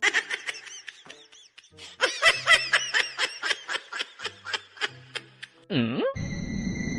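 High-pitched laughter in quick repeated bursts, several a second. Near the end comes a short swooping sound, then a steady high tone.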